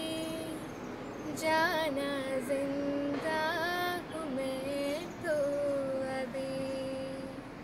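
A girl singing solo in a slow melody, with long held notes that bend and waver between phrases.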